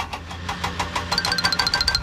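Cartoon vehicle engine sound effect: a fast, even chugging over a low hum, joined about a second in by a high pulsing beep or chime at the same rate.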